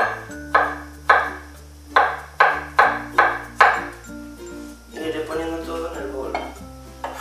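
Knife chopping potato on a plastic cutting board: about eight sharp strikes in the first four seconds. Then a lighter clatter as the chopped pieces are scraped into a metal bowl, with background music throughout.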